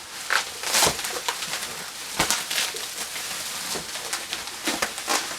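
3D printer's protective packing being handled and pulled out of its cardboard box: rustling with a few sharp knocks, the loudest about a second in and again about two seconds in.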